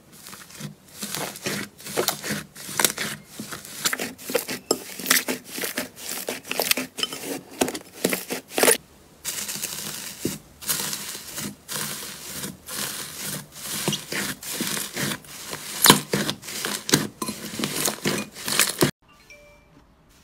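Hands pressing and squeezing slime, making a dense run of crackling pops and crinkles. After a short break about nine seconds in, the crinkling goes on as a slime covered in metallic foil pieces is pressed, then stops abruptly near the end.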